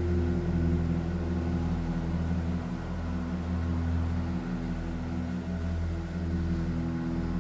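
Ambient drone music: a deep hum that swells and fades under several steady held tones, one of them fluttering with a quick regular pulse.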